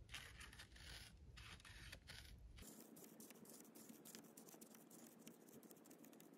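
Faint gritty crunching of granulated black powder being rammed down inside a PVC mortar tube with a wooden rod, in several short bursts over the first couple of seconds, then only faint ticks. The crunching goes on until the powder is packed tight.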